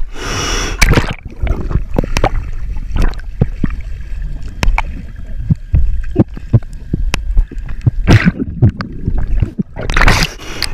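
Water sloshing and gurgling around an action camera dipped at and under the water's surface, muffled and rumbling, with many small sharp clicks. Louder splashy bursts come at the start, about eight seconds in, and near the end.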